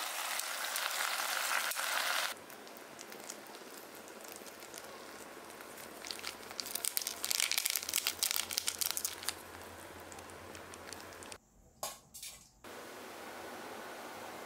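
Chapagetti noodles and black bean sauce sizzling in a hot pan as they are mixed with tongs, cutting off after about two seconds. A few seconds later, a plastic seasoning packet crinkles as it is shaken out over the noodles.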